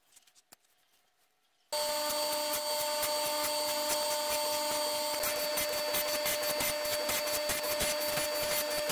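Boyar-Schultz surface grinder running: a steady whine with a dense fine ticking. It comes in abruptly about two seconds in, after a few faint handling clicks.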